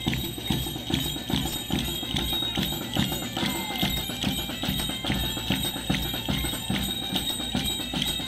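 Carnival street music with a steady drum beat at about two strokes a second, with the metal bells on a dancer's costume jingling and clanking.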